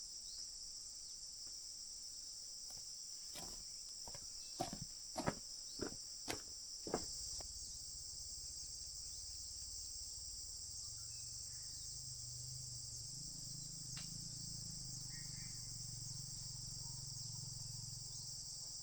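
A steady high chorus of insects trilling, with about six sharp knocks about four to seven seconds in, after which a low rumble joins and holds steady.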